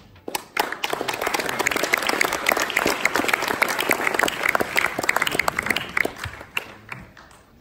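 Congregation applauding, starting just after the beginning and dying away near the end.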